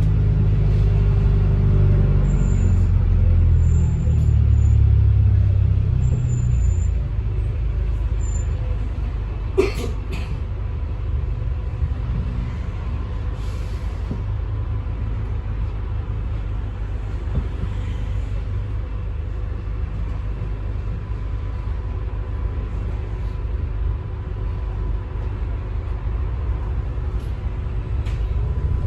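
On-board sound of a Volvo B5LH hybrid double-decker bus on the move: a low rumble, with a pitched drive note that eases off over the first several seconds. A sharp click comes about ten seconds in, with short faint hisses of air around it and a few seconds later, typical of the bus's air brakes or doors.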